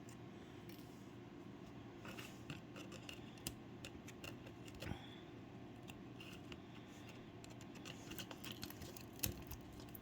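Faint, scattered light clicks and scrapes of small tools and parts working on a disassembled iPod Nano 3rd generation as its screen is pried loose, over a low steady hum.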